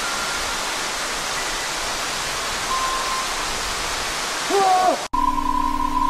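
Steady loud rushing noise, with a brief wavering voice-like call about four and a half seconds in. Near the end it cuts suddenly to an electronic intro jingle with a steady high beeping tone over a low hum.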